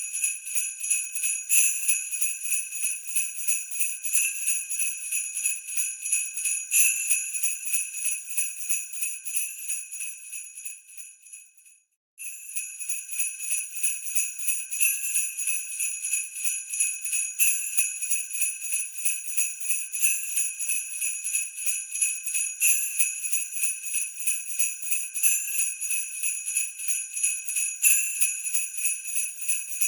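Sleigh bells jingling in a steady shaken rhythm, bright and high with a constant ring. About ten seconds in they fade away, cut out for a moment, then start again at full level.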